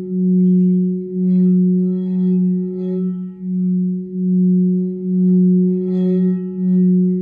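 A high heart crystal singing bowl rings with a sustained low tone that swells and fades about once a second, with a fainter, steady higher tone above it.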